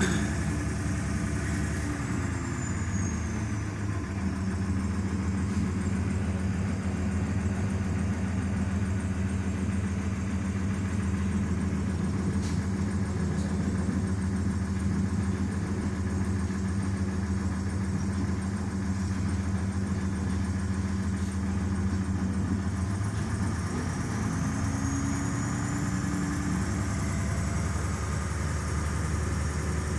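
Diesel multiple unit's engine running, heard from inside the passenger car. The engine note, with a faint high whine, drops in pitch a few seconds in, holds steady, then rises again near the end.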